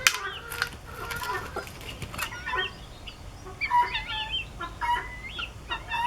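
Chickens clucking and calling in short curving and held calls, with several sharp clicks near the start.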